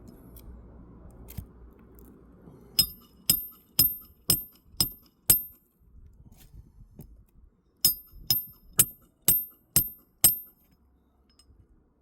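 Hammer blows on metal, sharp and ringing: a run of six strikes about two a second, a pause of about two seconds, then six more at the same pace.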